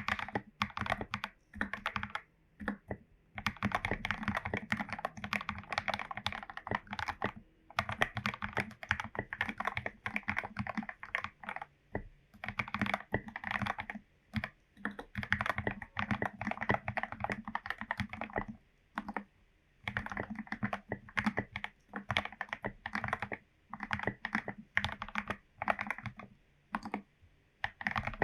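Typing on a modded Royal Kludge RK84 mechanical keyboard with lubed Gateron Yellow linear switches: quick runs of keystrokes broken by short pauses every few seconds.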